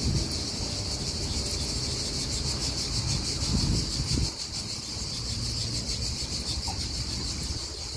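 A steady, high chorus of insects chirring in a fast pulsing rhythm, over a low rumble that swells briefly at the start and again about halfway through.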